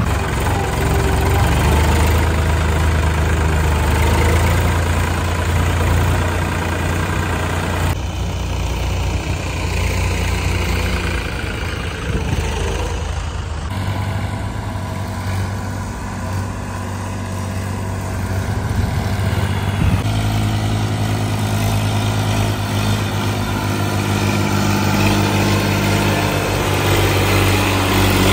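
Diesel farm tractor engines running under load with a steady low note, at first a Mahindra Arjun Novo tractor's engine heard from its own driver's seat. The engine sound changes abruptly three times.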